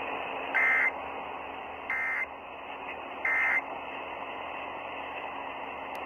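Emergency Alert System end-of-message code: three short bursts of buzzy digital data tones, about a second and a bit apart, marking the end of the monthly test. They come over AM radio reception with a steady hiss underneath.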